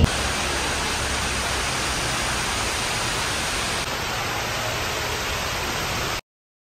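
A steady, even hiss that cuts off abruptly about six seconds in.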